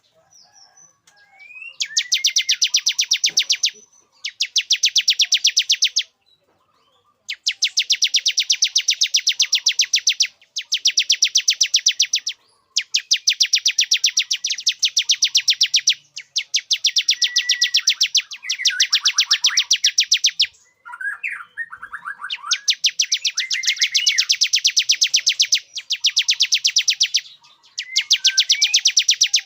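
Male bar-winged prinia (ciblek) singing its courtship song: repeated bursts of rapid, high trilled notes, each two to three seconds long with short pauses, and a few softer chirps in between.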